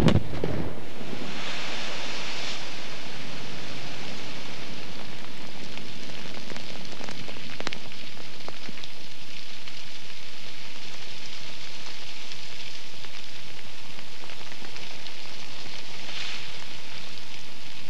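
The rumbling tail of a quarry rock blast dies away in the first second, followed by a steady rain-like hiss with a few faint scattered clicks while the dust cloud spreads.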